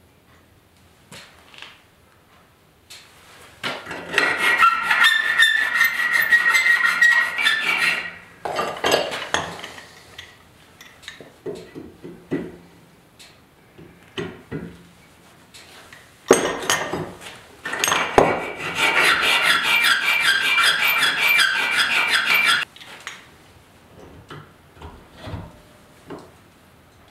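Metal rasping against metal on a steel shaft clamped in a bench vise, in two continuous spells of about four seconds each with a ringing edge. Between them come scattered clunks and knocks of metal parts being handled.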